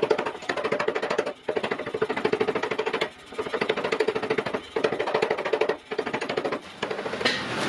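Mechanical power hammer striking hot iron in rapid runs of blows, about eight a second, each run lasting a second or so with short pauses between, the metal ringing under the blows.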